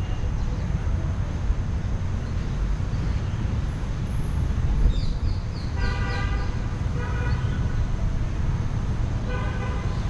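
City road traffic beyond the park: a steady low rumble with car horns honking three times, about six, seven and nine and a half seconds in. A short run of high chirps comes just before the first horn.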